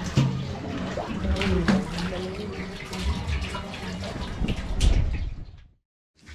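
Fast-flowing river water rushing and splashing against a concrete wall, with scattered splashes and knocks. It fades out to silence near the end.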